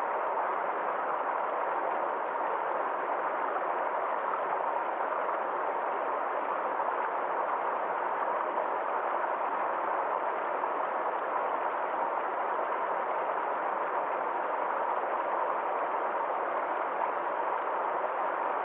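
Water flowing in a small stream, a steady, even rushing that does not change.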